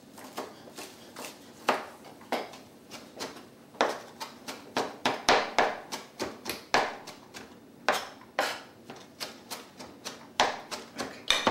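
Kitchen knife finely chopping fresh parsley on a cutting board: a string of sharp, irregular taps of the blade on the board, two to four a second, with short pauses.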